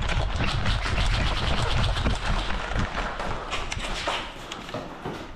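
A player in airsoft kit on the move: quick irregular footsteps and rattling gear over a low rumble of handling noise on the gun-mounted camera, strongest in the first few seconds and easing toward the end.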